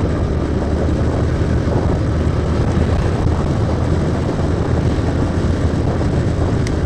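A motorcycle riding steadily along at road speed: a continuous rush of wind over the handlebar-mounted microphone mixed with the bike's running engine.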